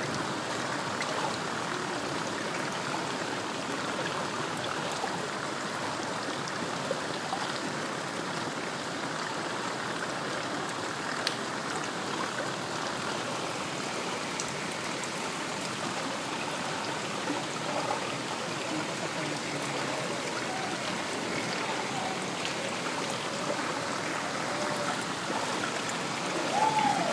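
Floodwater rushing and splashing steadily as it is churned through on a flooded street.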